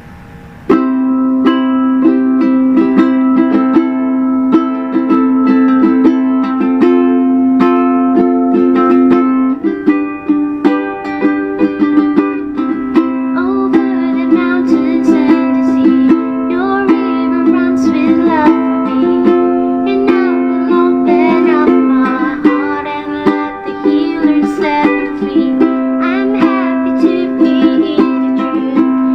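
An all-mahogany D&D tenor ukulele being strummed, playing a run of chords that shift every few seconds; it starts about a second in.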